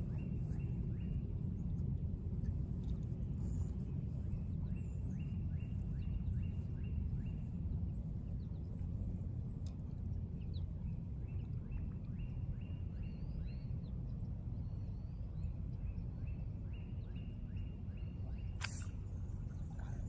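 Outdoor ambience: a steady low rumble with several runs of rapid, even trilling notes lasting a second or two each, faint bird chirps, and one sharp click near the end.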